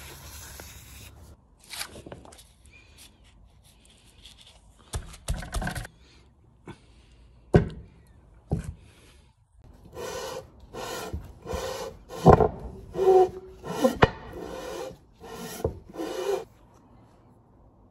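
A Royal Enfield Bullet 350 engine casting is rubbed back and forth against a flat sheet to check its face for warp. It gives a run of rasping strokes, about two a second, over the second half. Before that come a few knocks as the casting is handled and set down.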